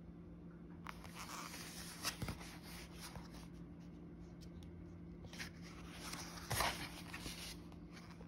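Paper rustling and soft knocks as a book is handled and its pages are turned, with two sharper rustles about two seconds in and near six and a half seconds, over a low steady hum.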